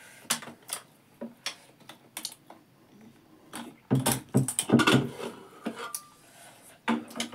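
Scattered clicks and clinks of eating from a steel plate, then about four seconds in a cluster of loud metal clanks and knocks as a pressure cooker of soup is lifted and brought to the table.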